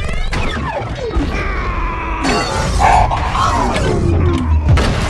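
Dubbed-in sci-fi battle sound effects: crashes and shattering over music, with many tones sliding down in pitch.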